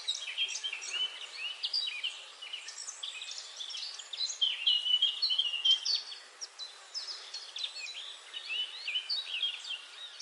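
Several small birds chirping and twittering over one another, many short quick calls in a steady chorus.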